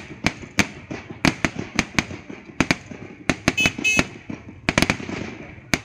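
Fireworks going off in quick, irregular bangs, about three or four a second, over a steady background rumble. Near the middle come two short high-pitched tones.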